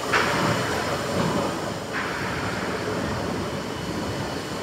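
Huge triple-expansion steam pumping engine running slowly, a steady mechanical rumble and clatter of its moving parts with a brighter rush of sound about every two seconds.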